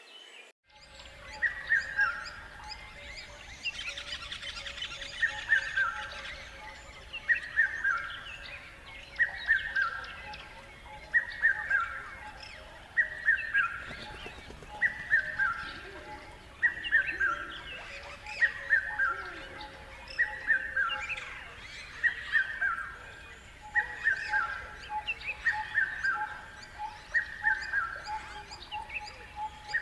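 Birdsong: one bird repeats a short, falling phrase of a few quick notes about every two seconds, over fainter chirping from other birds.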